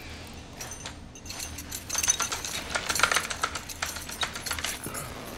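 Light metallic clicking and jingling of clothing fastenings and gear being handled, an irregular run of small clicks that is busiest about two to three and a half seconds in.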